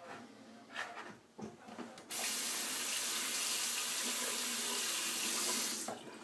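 Bathroom sink tap turned on about two seconds in, water running steadily into the basin, then shut off just before the end. A few faint clicks and knocks come before it.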